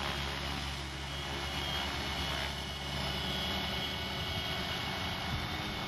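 Walkera V370D05 electric flybarless RC helicopter hovering close by: the steady, slight hum of its 370-size electric motor and spinning rotors, with a faint high whine over it.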